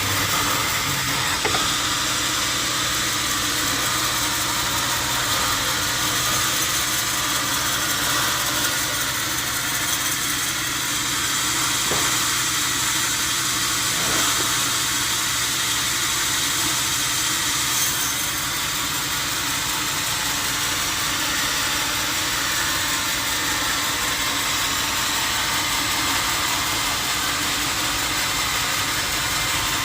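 Steady noise of sawmill machinery running, mostly a high hiss, with a low hum that drops out about two-thirds of the way through.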